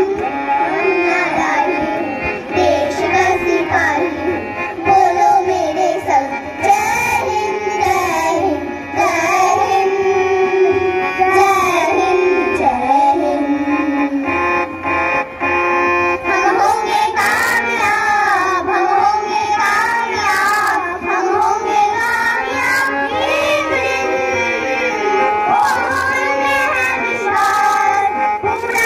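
Children singing a melodic song together with instrumental accompaniment.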